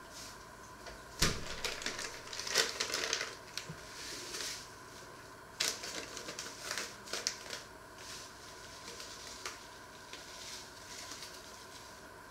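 A paper packet being handled and opened: crinkling and rustling with irregular sharp clicks and crackles.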